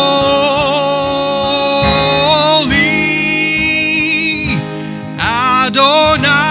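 Worship song with a voice holding long, slightly wavering notes over keyboard and guitar, a short dip about three-quarters of the way through before new notes come in.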